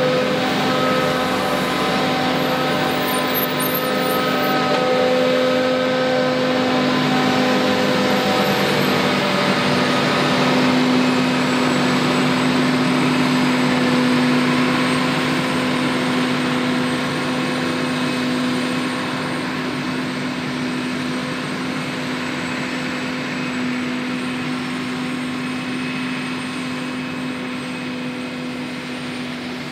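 John Deere 8600i self-propelled forage harvester running under load with a steady mechanical hum from its engine and chopper.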